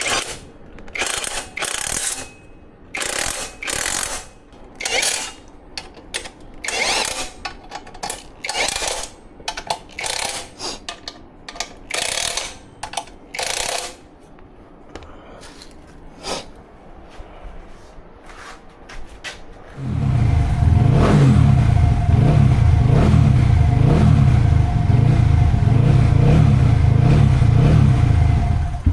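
A string of short hissing bursts about a second apart, then, about two-thirds of the way in, a Honda CRF150's single-cylinder four-stroke engine fires up and runs steadily and loudly.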